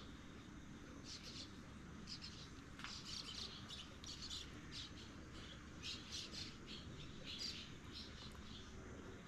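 Small birds chirping: many short, high calls in clusters, faint over a steady low background hum.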